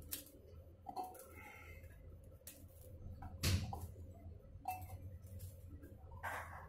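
Scattered light clicks and clinks of steel kitchenware as garlic and green chillies are handled on a steel plate and dropped into a steel mixer-grinder jar, the sharpest clink about halfway through, over a low steady hum.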